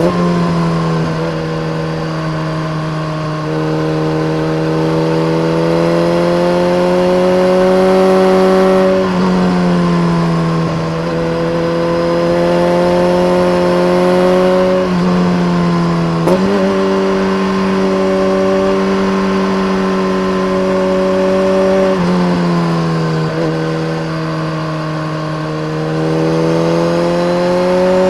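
BMW K1300R inline-four engine running through a full Akrapovic race exhaust with a dB killer, under way at moderate revs. The engine note climbs slowly under throttle, jumps up sharply twice about halfway through, and sags off throttle twice before picking up again near the end.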